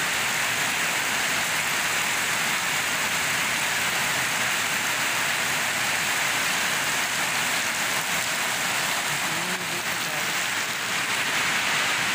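Steady rain falling on a concrete lane, an even hiss that does not let up.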